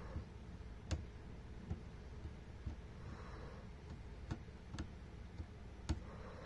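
Scattered sharp clicks and taps at irregular intervals, roughly one or two a second, over a low steady hum.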